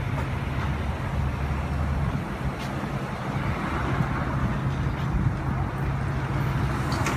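A vehicle engine idling: a steady low hum, with a couple of faint clicks.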